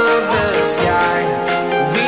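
Background music: a song with held instrument tones.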